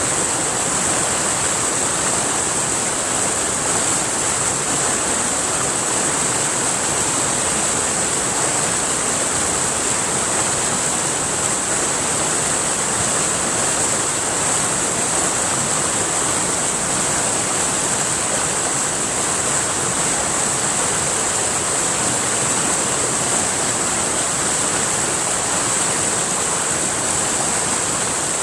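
River water rushing steadily over rocks, a constant even flow with no change.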